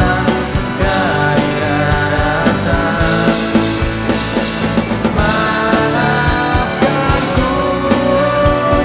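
Rock band playing a song: a steady drum beat with cymbals under sustained electric guitar notes.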